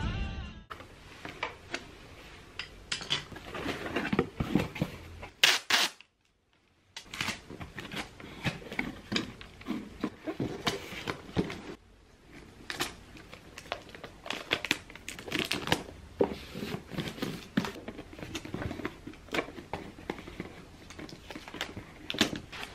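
A cardboard box being handled and taped shut: scattered rustles, taps and crinkles of the cardboard and packing tape, with one loud short rip of tape about five seconds in.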